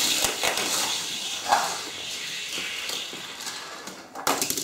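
Die-cast toy cars rolling fast down a plastic race track, a steady rolling rattle that slowly fades. A short clatter comes near the end.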